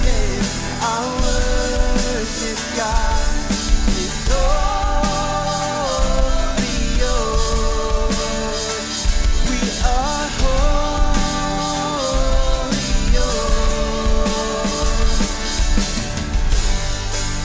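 A live worship band playing a rock-style song on drum kit, electric and acoustic guitars, bass and keyboard, with long held sung notes over the band.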